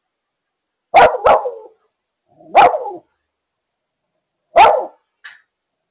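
A dog barking in short, sharp barks: two close together about a second in, one near the middle, and one near the end. This is anxiety barking while the dog is left alone.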